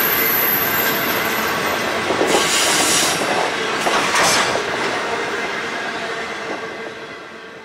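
Grain hopper wagons of a freight train rolling past on the rails, their wheels rumbling steadily, with two brief louder bursts of high wheel noise about two and four seconds in. The sound fades away as the last wagon goes by.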